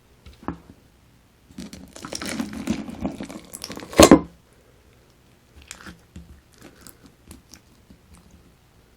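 Crunchy slime packed with Perler beads being squeezed and pressed, the plastic beads crunching and crackling. A dense run of crackles ends in a loud crunch about four seconds in, then softer scattered crackles follow.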